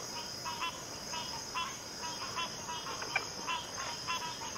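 Steady high-pitched drone of swamp insects, with short chirping calls repeating several times a second, often in pairs.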